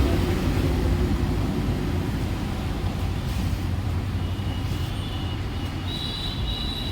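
Steady low vehicle rumble that eases slightly in level, with faint high-pitched tones coming in near the end.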